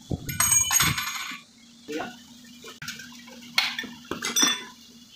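Metal-on-metal clatter and scraping of tools and parts against a tractor gearbox housing as a lock is fitted on the top shaft: a loud rattling clatter at first, then about five sharp clinks, each with a brief ring.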